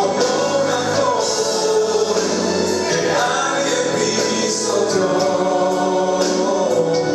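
Christian worship music: a choir sings long, held notes over instrumental backing.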